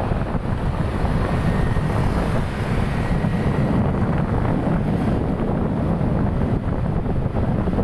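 Steady wind rumble on the microphone from riding along a busy city road, with traffic and engine noise beneath it.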